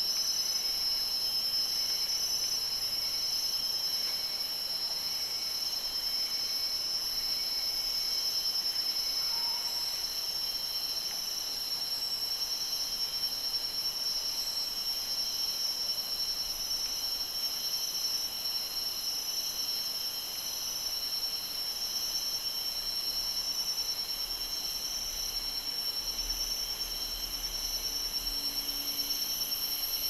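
Steady chorus of tropical forest insects: several high-pitched buzzing tones held at once, with a pulsing call over it during the first eight seconds or so. A faint low rumble comes in near the end.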